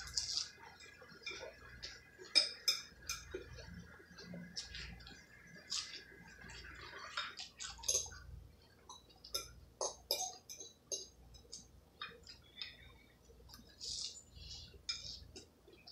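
A metal fork clinking and scraping against a ceramic bowl while spaghetti is eaten, with wet chewing and slurping sounds between the clinks. A faint steady high whine sits under the first half and fades out about seven seconds in.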